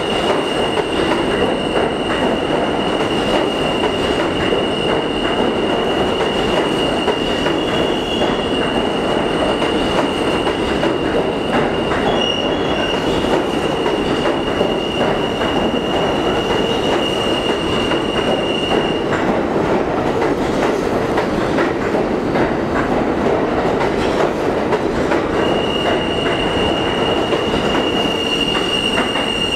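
R160 subway train moving close past the platform as it pulls out of an underground station, a steady rumble of cars and wheels. Over it runs a steady high-pitched wheel squeal that stops about two-thirds of the way through and comes back near the end.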